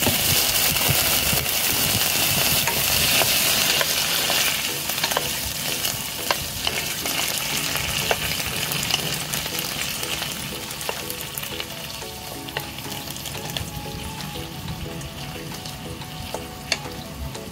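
Whole raw shrimp sizzling in hot oil in a pan, loudest just after they go in and dying down over the following seconds, with occasional clicks and taps of a utensil stirring them.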